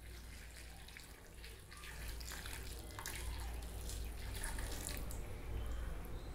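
Hot water poured in a thin stream into a glass bowl of pitted dates, splashing faintly and getting a little louder about two seconds in, over a low steady hum.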